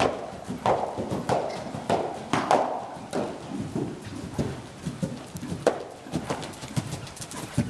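Hoofbeats of a Morgan gelding trotting and cantering on sand arena footing, a steady rhythm of about one and a half strong beats a second.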